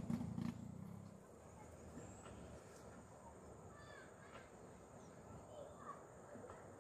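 Quiet outdoor river-bank ambience: a low rumble fades away in the first second, leaving a faint steady hiss with a few short bird chirps about four and six seconds in.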